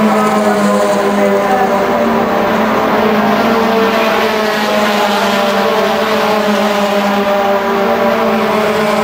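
Racing touring cars' engines running hard along the circuit, heard from trackside as a loud, steady engine note that holds its pitch with no clear rise or fall.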